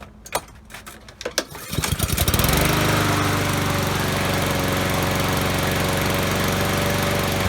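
Honda GCV160 single-cylinder lawnmower engine being pull-started, preceded by a few clicks. It catches about two seconds in and then runs steadily at a constant speed.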